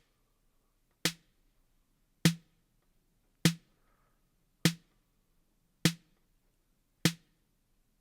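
A looped snare drum sample hitting six times, about 1.2 seconds apart, each hit a sharp crack with a short decay. It plays through an analog-style EQ with the very bottom of the snare boosted and the mids just above it cut.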